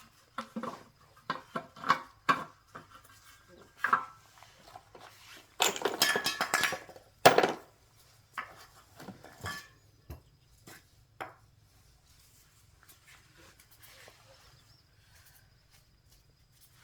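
Hard objects being handled: a series of knocks and clinks, a burst of rattling about six seconds in ending in a sharp clack, then only scattered light ticks.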